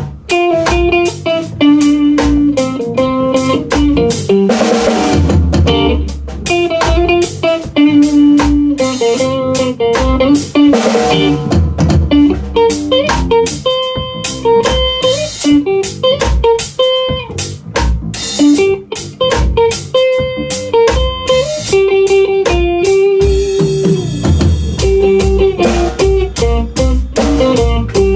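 A live band of electric guitar, bass guitar and drum kit playing a rock piece together, the drums keeping a steady beat under the guitar lines, with cymbal crashes now and then.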